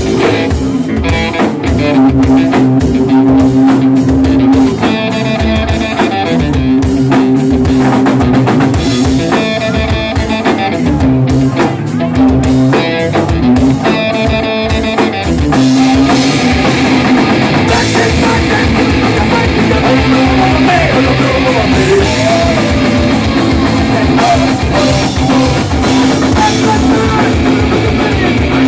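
A live rock band playing: electric guitar, bass guitar and drum kit, with a steady beat and held guitar notes. The sound becomes fuller and denser about halfway through.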